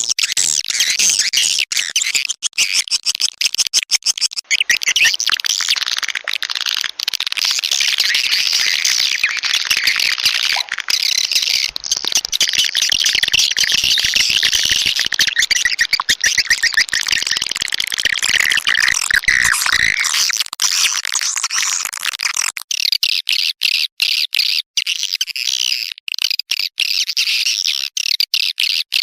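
Swiftlet lure recording: a dense, continuous high-pitched twittering of many swiftlet calls, the sound played to draw swiftlets into a nesting house. About 22 seconds in it turns choppier, with short breaks between runs of chirps.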